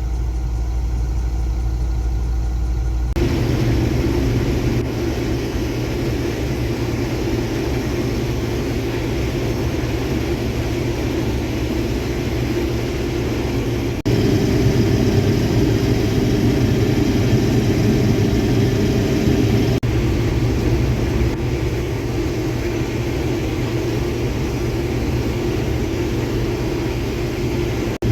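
Combine harvester running while picking corn: a steady engine and machinery drone that changes abruptly about three seconds in and again about halfway through.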